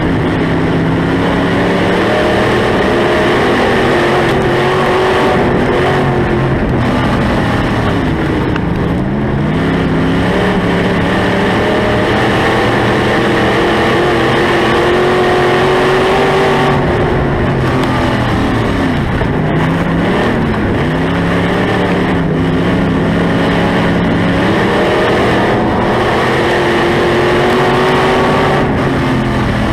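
Dirt-track SportMod race car's V8 engine heard from inside the car at racing speed, the pitch dropping as the driver lifts into each turn and climbing again as he accelerates down the straights, over and over.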